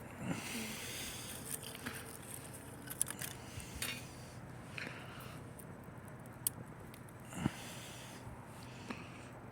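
Camp gear being handled: scattered light clicks, scrapes and rustling, with one dull knock late on.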